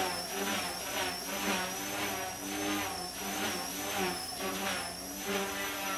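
Micro collective-pitch RC helicopter with brushless main and tail motors, hovering. The motors give a high steady whine that wavers slightly in pitch, over the fluttering buzz of the spinning rotor blades.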